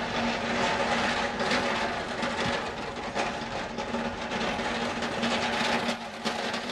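Empty manual hand pallet truck rolled over cobblestones: its steel forks and hard wheels rattle and clatter continuously and irregularly. A steady hum runs underneath.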